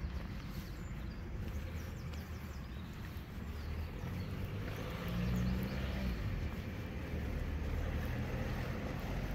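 Road traffic rumbling steadily, with a vehicle passing about five seconds in.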